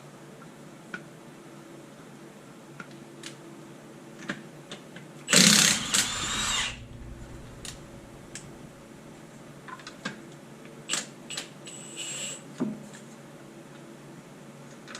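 A power tool runs in one loud burst of about a second and a half, about five seconds in, with a shorter burst near the end. Short clicks and clanks of hand tools and parts are scattered between the bursts.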